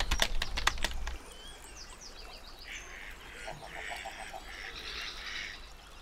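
Geese and ducks calling in a series of honks and quacks from a few seconds in, with a quick run of short notes in the middle and small birds chirping faintly throughout. The first second holds a louder burst of knocks and low rumble.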